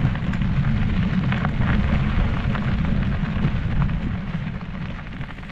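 Wind buffeting the camera's microphone with a heavy low rumble while riding a mountain bike along a dry dirt trail, with scattered ticks and crunches from the tyres on gravel. It grows quieter near the end.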